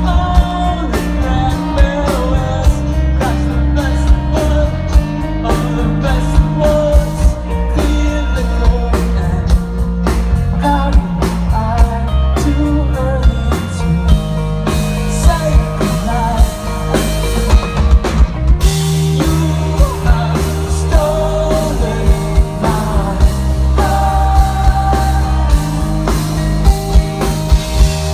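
Live rock band playing electric guitars, bass and drums, with a sung lead vocal, heard loud through the festival PA from within the audience. The song moves into a new section about two-thirds of the way through.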